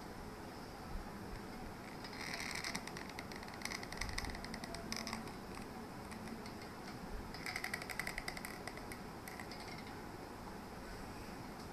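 Hot glue gun being squeezed, its trigger and feed mechanism giving short bursts of rapid creaky clicking as the glue stick is pushed through. It happens three times, about two, four and seven and a half seconds in.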